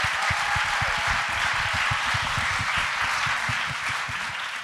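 Audience applauding, dense steady clapping that tapers slightly near the end.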